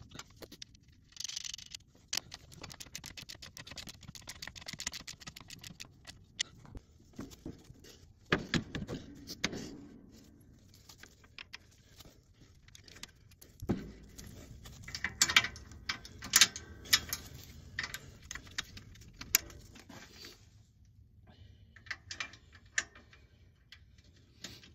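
Ratchet socket wrench clicking in quick runs, with clinks and louder clanks of steel nuts, U-bolts and the mounting plate, as U-bolts are fastened to a UTV plow mount.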